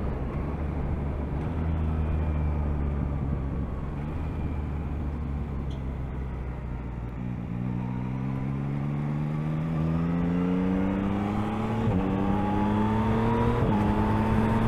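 Yamaha MT-09's 890 cc inline-three engine heard from the rider's seat, holding steady at first, then accelerating from about halfway with its pitch rising. Two quick upshifts come near the end, over wind rush.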